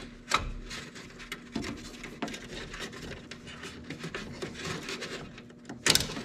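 Plastic zip tie being worked and pulled against a plastic grille: scattered rubbing and small clicks, with one short, loud rasp near the end.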